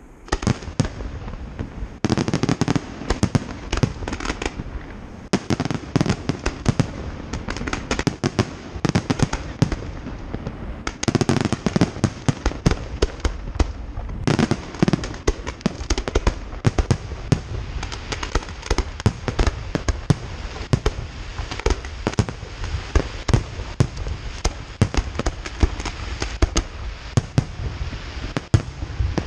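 Aerial fireworks display: shells bursting in a rapid, dense series of bangs, several a second, with barely a pause throughout.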